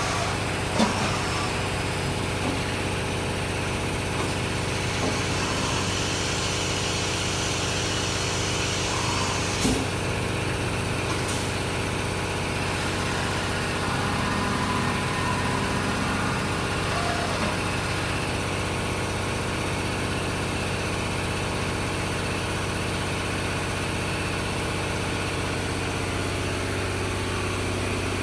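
Fadal 4020 CNC vertical machining center running with a steady mechanical hum, with a short knock about a second in and another near ten seconds.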